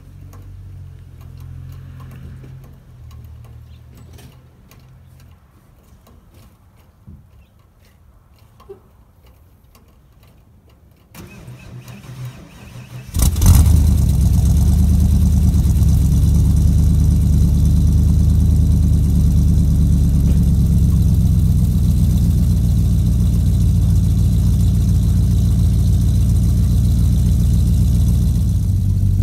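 A 1992 Ford F-250's 460 (7.5-litre) big-block V8 cold-started after sitting three months at about 30°F. The starter cranks for about two seconds starting about eleven seconds in, then the engine catches sharply and settles into a loud, steady idle through true dual exhausts with no catalytic converters and 30-inch glass-pack mufflers.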